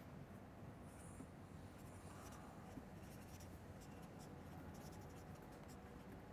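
Faint scratching of a pen writing words on paper, in short irregular strokes.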